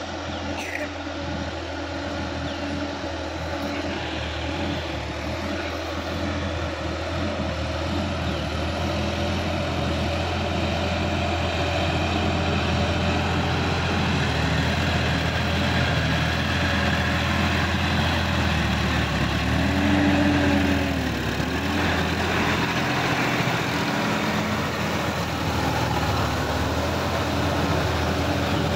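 Sonalika DI-50 RX tractor's diesel engine running under load while it pulls a rotary tiller through flooded mud, growing louder over the first ten seconds as it comes closer.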